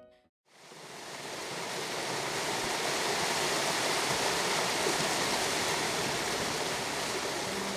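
River water rushing over rocks in rapids, a steady rush that fades in after a brief silence about half a second in.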